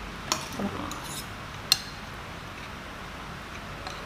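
Metal spoons clinking against ceramic bowls: a few light clicks in the first two seconds, then quieter.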